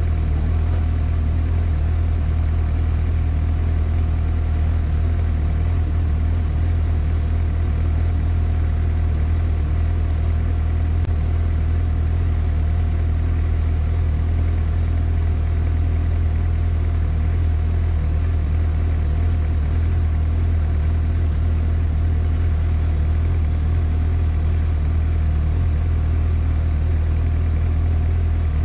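Suzuki GSX-S750 inline-four motorcycle engine idling steadily at a standstill.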